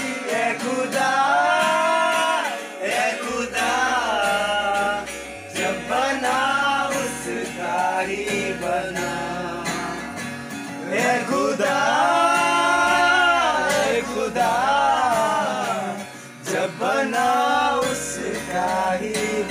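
Acoustic guitar played with a man singing a song along to it.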